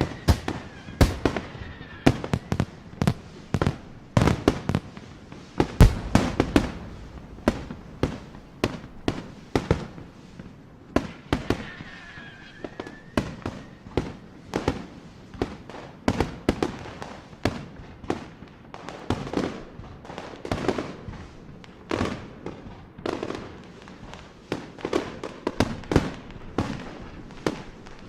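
New Year fireworks and firecrackers going off all around: dense, irregular sharp bangs and pops, several a second, with a loud blast about six seconds in and a brief high whistle around twelve seconds.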